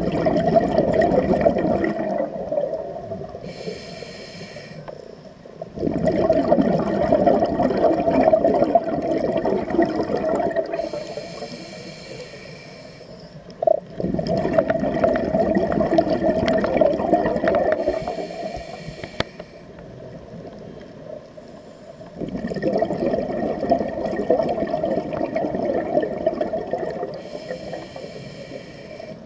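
Scuba diver breathing through a regulator, heard underwater: four long rushes of exhaled bubbles, each followed by a short hissing inhalation through the regulator, a full breath about every eight seconds.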